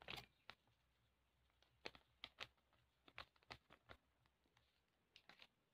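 Near silence with a dozen or so faint, short clicks scattered through it.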